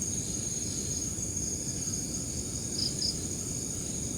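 Crickets trilling in one steady high tone, with two short higher chirps close together about three seconds in, over a low rumbling noise.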